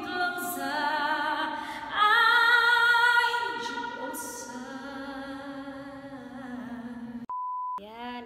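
A woman singing solo, holding long notes with vibrato. Near the end the singing breaks off and a short steady beep sounds for about half a second.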